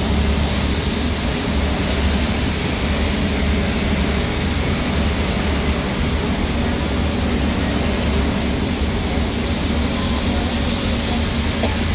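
Steady rumble and hiss inside a moving bus's cabin: the engine and the tyres on a rain-soaked road at speed, with heavy rain on the bus.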